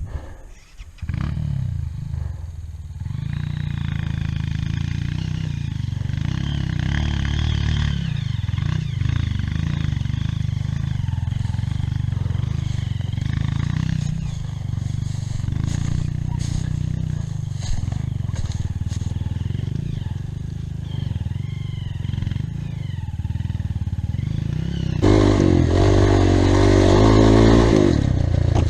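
Off-road motorcycle engine running steadily on a trail ride, then revving harder near the end.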